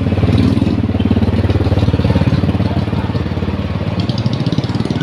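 A small engine running steadily, loud and close, its rapid firing pulses even throughout.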